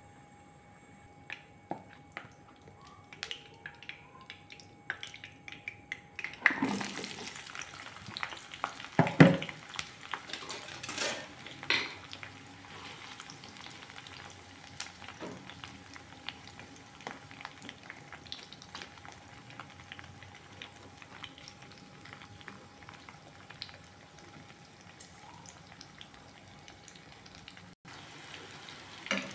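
Eggplant chunks hit hot oil in a ceramic-coated wok about six seconds in, starting a steady frying sizzle. Metal tongs clack against the pan several times just after as the pieces are spread and turned. Before that there are only a few light clicks over the heating oil.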